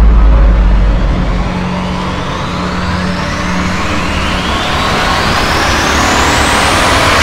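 A horror-trailer sound-effect riser: a rushing hiss that climbs steadily in pitch and swells for about seven seconds to a peak at the end, over the deep rumble of a preceding hit that dies away in the first second and a half.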